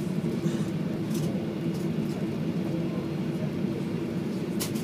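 Boeing 737-800 cabin noise as it taxis: the CFM56 engines' steady low hum at low power, heard from inside the cabin by the wing, with a couple of brief faint clicks.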